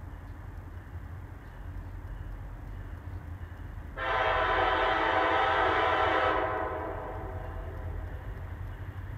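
Air horn of an approaching freight train's locomotive: one long blast starting suddenly about four seconds in, held for about two and a half seconds, then fading, over a low steady rumble.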